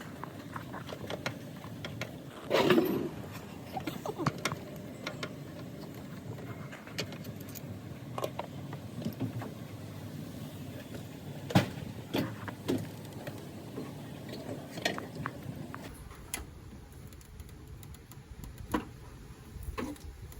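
Scattered metallic clinks and knocks of hand tools working on bolts in an engine bay, with one louder scraping clatter about two and a half seconds in.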